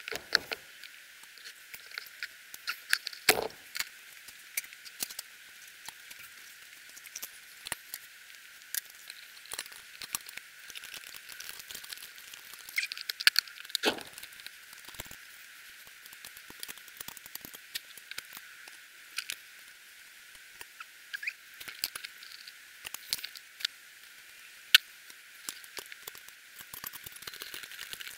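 Scattered light clicks and knocks of metal parts and tools being handled while valves are fitted to a BSA A70L Lightning's aluminium cylinder head with a G-clamp valve spring compressor. Under them runs a steady hiss, and a couple of louder knocks come about three and fourteen seconds in.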